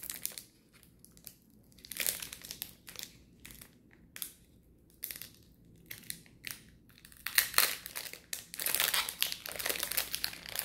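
Crinkling of foil booster-pack wrappers being handled, in scattered crackles at first that grow busier and almost continuous in the last few seconds.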